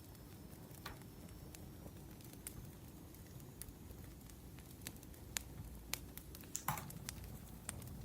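Wood fire crackling: scattered sharp pops and snaps over a low steady rumble, with one louder pop a little under seven seconds in.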